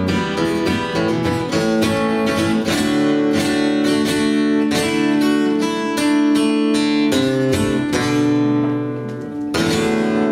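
Acoustic guitar strummed alone in the song's instrumental ending, chords ringing between regular strokes, with a dip and a fresh strummed chord about nine and a half seconds in.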